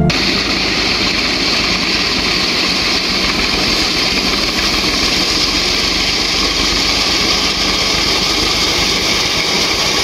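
Tractor engine running steadily under load as its front-mounted reaper cuts standing wheat.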